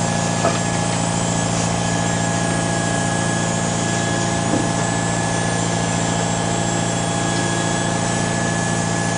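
A boat's engine running steadily: a constant, even drone with no change in pitch, with one short tick about half a second in.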